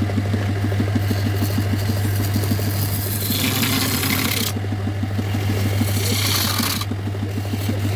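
Electric power tool's motor running steadily while wood is scraped or shaped, the scraping growing louder and dropping away several times as the tool meets and leaves the wood.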